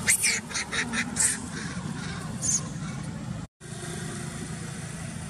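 Baby macaque screeching in short high-pitched bursts as a bigger monkey wrestles it down: several in quick succession in the first second or so, one more about two and a half seconds in. A steady low hum runs underneath, and the sound cuts out for a moment a little past halfway.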